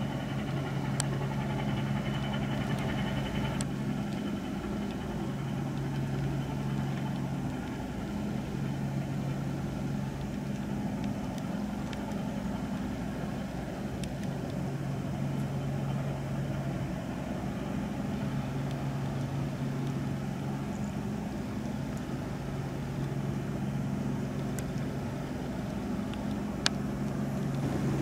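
Cement carrier's diesel engine droning as the ship passes: a steady low hum whose tones fade in and out every few seconds over a wash of background noise, with a few faint clicks.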